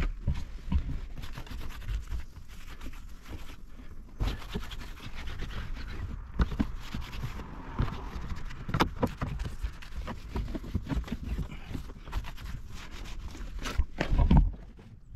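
Scrubbing and handling noises from cleaning inside a car: brushing and wiping strokes mixed with irregular knocks and bumps, with a loud cluster of knocks near the end.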